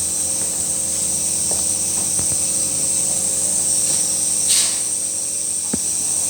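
Compressor nebulizer running steadily during steam therapy for a baby's cough and cold: a motor hum under a constant high hiss. A short rushing sound comes about four and a half seconds in, and a faint click near the end.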